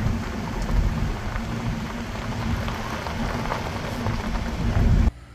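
Wind buffeting the microphone: a rushing noise with a heavy, fluttering low rumble, cutting off abruptly near the end.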